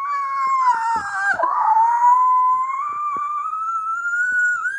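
A dog howling in one long unbroken call that dips in pitch early and then slowly rises.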